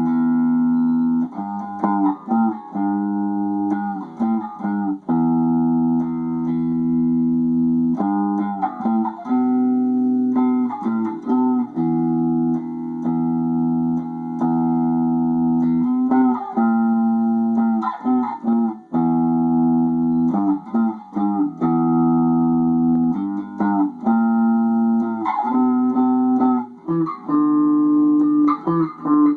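Solo instrumental playing: long held chords, each lasting one to three seconds, joined by quick sliding runs of notes.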